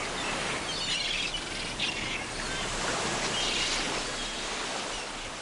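Beach ambience: the even hiss of small waves washing onto the sand, with birds chirping a few times.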